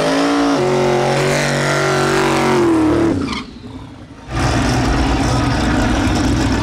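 Turbocharged El Camino drag car's engine during a burnout: the revs climb in the first half second, hold high for about two seconds, then fall off. After a short dip, the engine idles loudly close by.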